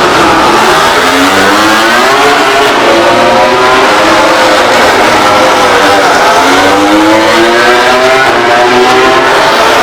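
MotoGP racing motorcycle engines running at high revs, their pitch climbing and then dropping away again several times.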